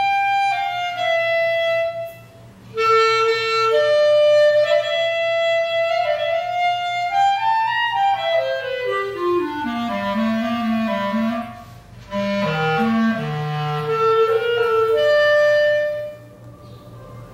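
Solo clarinet playing a melody, with short breaks for breath about two seconds in and about twelve seconds in. Midway it runs quickly down into the instrument's low register, and the playing stops near the end.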